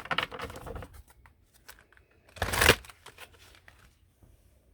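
Oracle card deck being shuffled and handled by hand: a quick run of papery rustling flicks in the first second, then one loud, half-second burst of card noise about two and a half seconds in.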